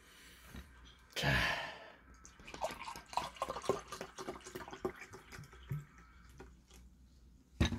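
Makgeolli being poured from a plastic bottle into a glass: a run of quick, irregular glugs and splashes of liquid hitting liquid.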